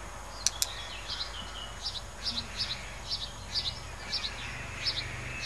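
A songbird repeating a short high chirp, about two a second, over a steady low hum, with two sharp clicks about half a second in.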